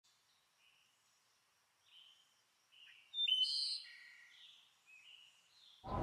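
Birds chirping in short separate calls, loudest about three seconds in. Right at the end a loud low rumble of thunder suddenly sets in.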